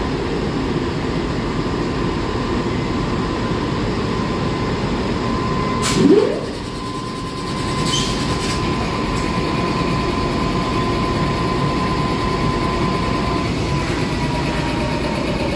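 Train running on the rails with a steady rumble. A thin steady whine over it starts falling in pitch near the end, and a short rising whine comes about six seconds in.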